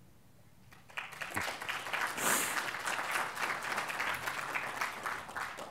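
Audience applauding. The clapping starts about a second in and dies away near the end.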